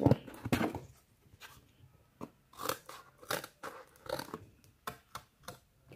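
Cardboard being handled and bent by hand, making irregular short crackles and taps, loudest in the first second.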